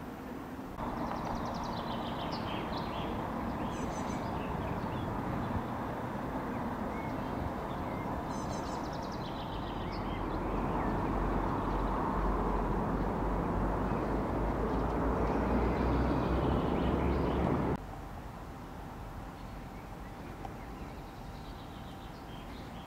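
Outdoor ambience: a steady rushing background noise with a deep rumble in its later part and a few short bird chirps over it. The noise cuts off abruptly near the end, leaving quieter background.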